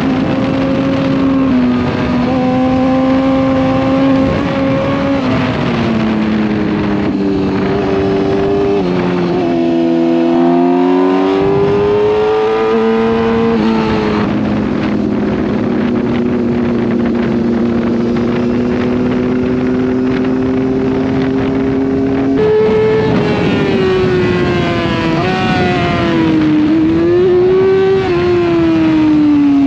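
Sport motorcycle engine heard from on board under wind rush, holding steady revs for long stretches. The note falls and climbs again as the throttle eases and opens through the bends, with a few sudden drops at gear changes.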